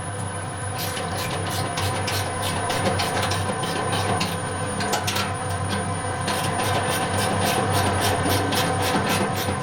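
Agitator drive of a stainless steel stirring tank running: a steady motor hum with rapid, irregular clicking or rattling over it.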